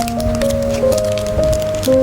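Background music with a simple melody of held notes, with short crackling, squishing noises over it.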